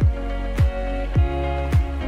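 Background music with a steady beat: a kick drum that drops in pitch lands about every 0.6 seconds, four times, under held chords.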